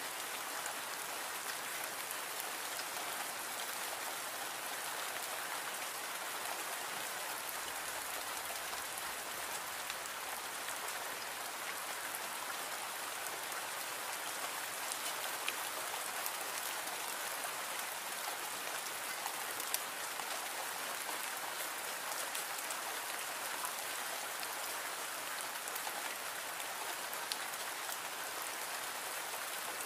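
Steady rain falling, an even hiss with a few scattered louder drop taps.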